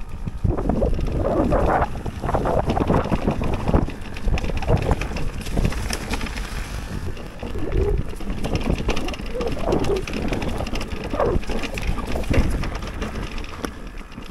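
Mountain bike ridden along a rough trail: an uneven rumble of tyres and rattling bike parts with many small knocks, and wind on the microphone.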